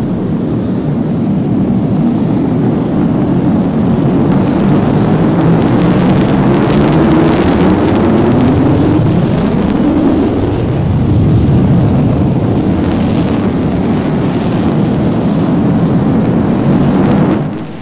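Panavia Tornado's twin RB199 turbofans at full afterburner on the takeoff roll: loud jet noise whose pitch sweeps up and then down as the jet passes, about halfway through, carrying on as it lifts off. The sound cuts off suddenly near the end.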